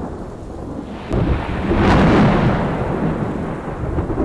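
Thunder rumbling over rain, a sound effect under a video logo intro; the rumble swells to its loudest about two seconds in, then rolls on.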